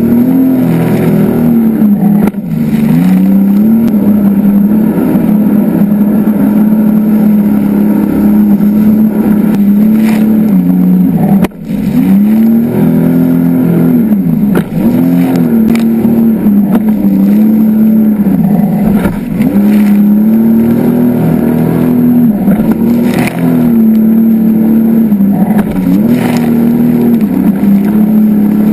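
Jet ski engine running hard on open water, its pitch rising and falling as the throttle changes, over the rush of spray and water against the hull. About a third of the way in, the sound dips sharply for a moment.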